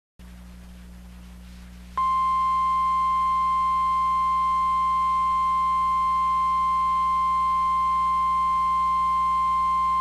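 NOAA Weather Radio's 1050 Hz warning alarm tone: a single steady high-pitched tone that starts suddenly about two seconds in, over a low hum. The tone signals that a warning broadcast is about to follow.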